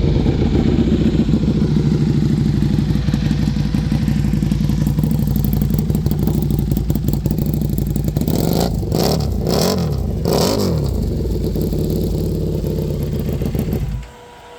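Buell Hammerhead 1190's V-twin engine, fully warmed up, idling through a full stainless-steel Kaplan stage 1 exhaust, blipped three quick times a little past the middle with the revs rising and falling back to idle, then switched off about a second before the end.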